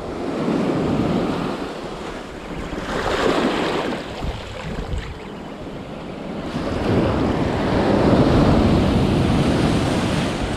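Sea surf washing in on the beach, swelling and falling in three waves, with wind rumbling on the microphone.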